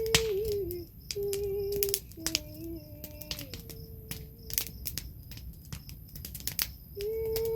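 A woman's voice singing long wordless notes, humming-like, with small gliding bends in pitch. There are several short phrases in the first half, a pause, and a new held note near the end, with scattered sharp clicks in the background.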